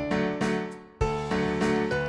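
Background music: plucked guitar-like notes in a steady rhythm, fading briefly before a new phrase starts about halfway through.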